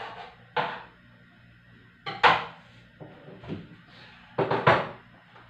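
Kitchen handling sounds: a few separate knocks and clatters of utensils and dishware on the counter, spaced about a second apart, the loudest about two seconds in and a quick cluster of them about four and a half seconds in.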